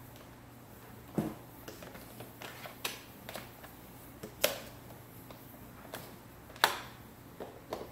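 Irregular clicks and knocks of plastic parts being handled and fitted together on an upright vacuum cleaner, the two loudest about four and a half and six and a half seconds in.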